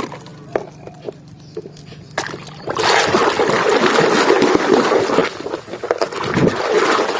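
Water running and splashing over a mud-covered toy as it is rinsed clean, starting about three seconds in and stopping just before the end. A few light taps come before it.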